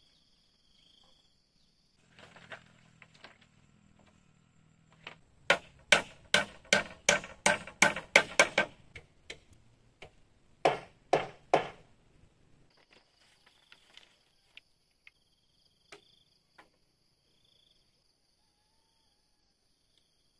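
A run of sharp blows from a hand tool striking wood or bamboo, about three a second for several seconds, then three more after a short pause.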